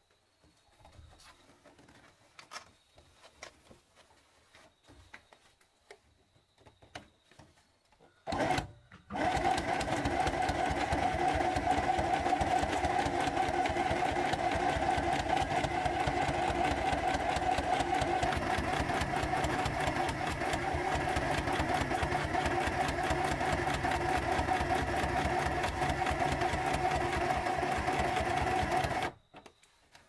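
Electric household sewing machine stitching fabric. After a few faint clicks, it starts with a short burst about eight seconds in, then runs steadily at speed for about twenty seconds with a fast needle rattle over a steady motor hum, and stops just before the end.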